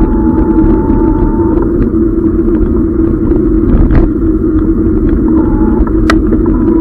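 Tern HSD electric bike riding along a rough, wet road: a steady loud hum and rumble, with a thinner higher whine that stops about a second and a half in and comes back near the end. Two sharp knocks, the second louder, come from bumps in the road surface.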